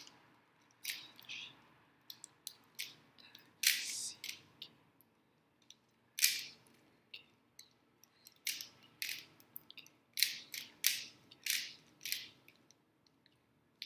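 Rubik's cube being turned fast during a speedsolve: plastic layers clicking and scraping in quick, irregular clusters of turns, with short pauses between them.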